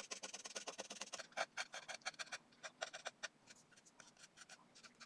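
Fingernail scraping and chipping satin blue paint off a 3D-printed plastic knee armor piece: faint, irregular small clicks and scratches, thinning out toward the end. The paint comes away where toothpaste was put on beneath it.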